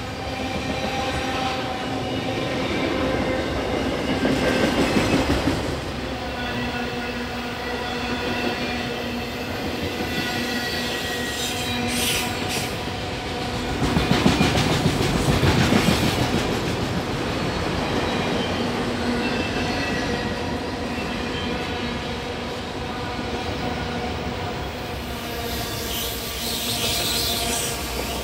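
Freight train of autorack cars rolling past, wheels clattering on the rails with steady squealing tones over the rumble. It swells louder twice, about four seconds in and again around the middle.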